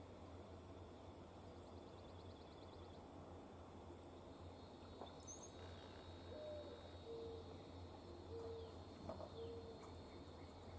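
A bird giving a faint series of four short, low hooting notes in the second half, with a brief high chirp from another bird just before.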